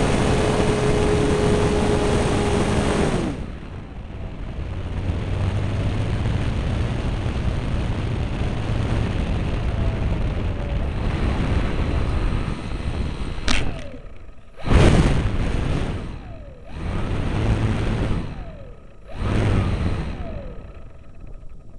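Heard from a camera on board a coroplast profile F-18 RC plane: its electric motor and propeller run with a steady whine, then cut off about three seconds in. Wind then rushes past as the plane glides in. Near the end comes a sharp knock as it touches down, then several short, loud bursts of noise as it comes to rest on the pavement.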